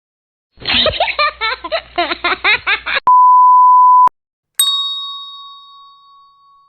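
A rapid run of short, high-pitched voice-like squeaks for about two seconds, then a one-second censor bleep (a flat pure beep), then a single bell-like ding that rings out and slowly fades.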